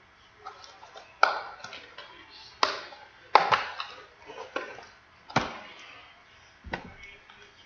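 Objects being handled on a tabletop: a series of about seven sharp taps and clicks, unevenly spaced, with faint handling noise in between.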